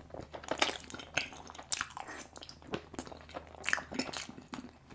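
Close-miked chewing of cheese-covered chili fries: irregular wet smacks and clicks of the mouth.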